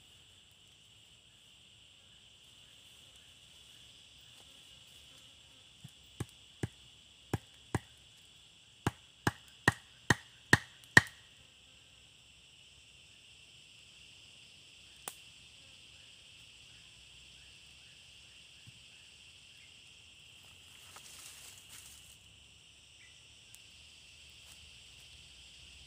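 About ten sharp chopping knocks on wood, coming faster and louder over some five seconds, with one more a few seconds later. Insects drone steadily throughout.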